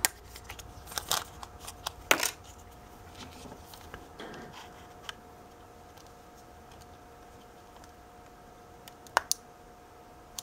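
Small plastic clicks and taps from handling an SD card in its clear case and pushing it into a camcorder's card slot, the sharpest about two seconds in, with a last sharp click about nine seconds in as the card clicks into place. A faint steady hum runs underneath.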